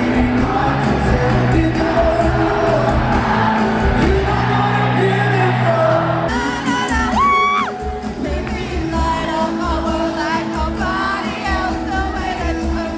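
Live pop-rock band and lead singer playing in an arena, recorded from the crowd. About six seconds in the sound changes abruptly as the recording cuts to a fan close to the microphone, who lets out a long sliding shriek and then sings along loudly over the music.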